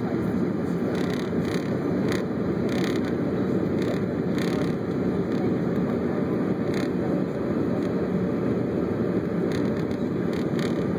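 Steady cabin noise inside a CRJ-200 regional jet descending on approach: a dense, even low rush of airflow and its rear-mounted turbofan engines. Faint brief crackles sound over it a few times.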